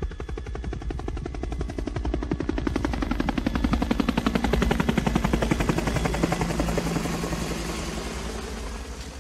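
Helicopter rotor blades chopping rapidly, swelling to a peak about halfway through and then fading away.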